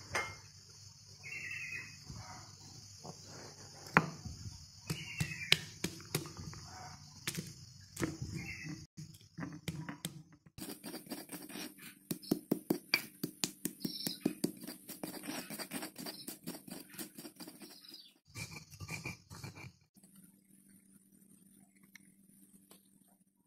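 Stone pestle grinding and crushing dry spices (coriander seeds, candlenuts, salt) against a stone mortar: scattered knocks at first, then several seconds of quick, rhythmic grinding strokes, dying down near the end. A steady high buzz with a few chirps runs in the background through the first half.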